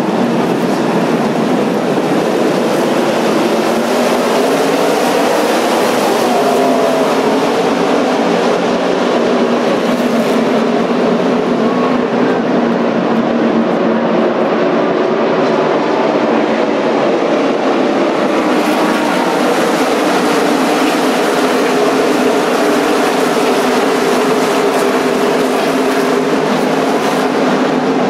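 A full field of NASCAR stock cars' V8 engines running together around the track: a constant loud roar with several engine notes rising and falling over one another as cars pass.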